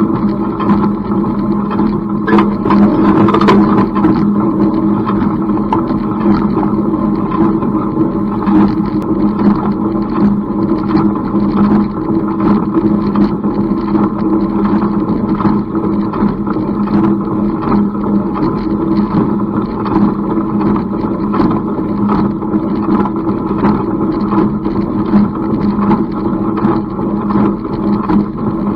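Tractor engine running steadily while pulling an IH 47 wire-tie baler in alfalfa hay, with short regular knocks from the working baler over the engine's hum.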